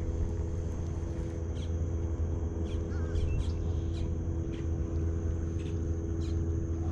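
A steady mechanical hum holding several fixed tones, with short scattered bird calls over it.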